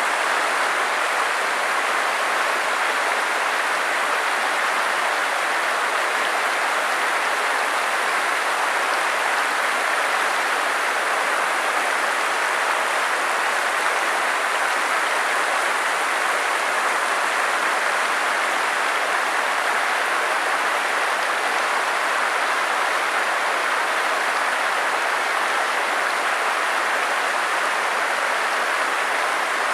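Stream water rushing steadily over rocks, an even, unbroken hiss.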